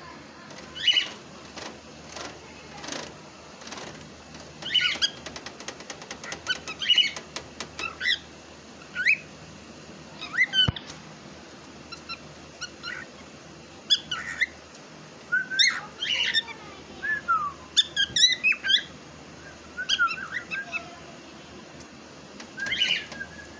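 Cockatiel giving repeated short chirps and whistled calls, many of them sliding up or down in pitch. A quick run of clicks comes about five seconds in.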